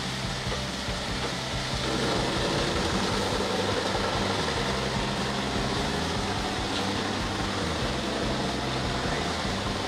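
Bandit 1425 horizontal grinder running under load as a log is fed into its cuttermill: a steady engine drone with coarse wood-grinding noise, growing louder about two seconds in.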